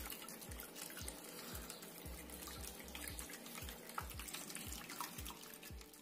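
Small cement tabletop waterfall fountain running: water pouring from a spout into a bowl and spilling over its rim onto stones, a steady splashing trickle.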